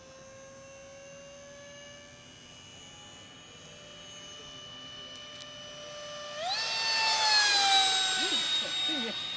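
Electric ducted fan of a Unique Models T-50 RC jet running on a 5S battery. Its whine climbs slowly in pitch, then about six seconds in it jumps higher and grows much louder as the jet comes by close. The pitch slides down as it passes.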